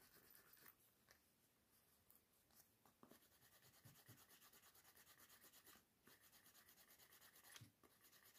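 Wooden edge slicker rubbed back and forth along the edge of a leather card holder, burnishing it smooth: a faint, even rubbing of several strokes a second, with a brief break about six seconds in.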